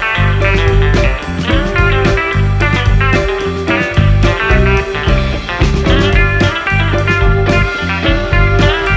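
Background music: a blues-rock track led by electric guitar over a steady bass and beat.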